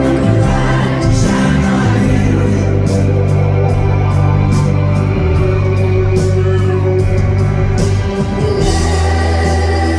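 A rock band playing live in a hall, with sustained low bass notes that change every few seconds under full, held chords.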